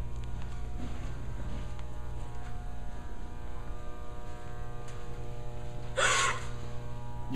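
A steady low hum made of several even tones runs throughout. About six seconds in, a young woman gives one brief gasp of fright.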